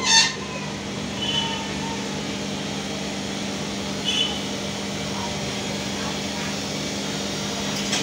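Samsung 7 kg front-load washing machine running on test with water in the turning drum: a steady hum with no excess noise from its newly replaced drum bearings and seal. A brief sharp high sound comes right at the start.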